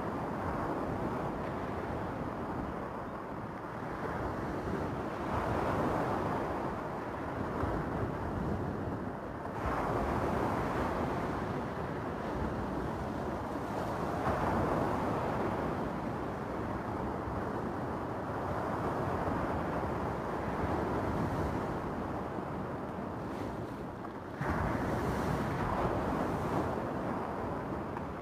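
Small waves breaking and washing over a stony beach, with wind on the microphone. The surf rises and falls every few seconds, with two sudden louder surges, about a third of the way in and near the end.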